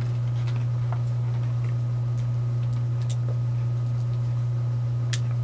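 Steady low hum with faint small clicks scattered through it, sipping and swallowing sounds as someone drinks milk from a ceramic mug.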